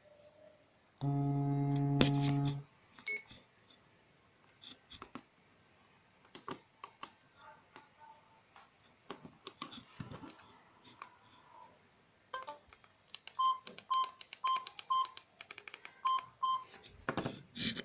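Sagem mobile phone's vibration motor buzzing steadily for about a second and a half, the vibrate-only alert setting. Then scattered keypad button clicks, and near the end a run of short high key beeps.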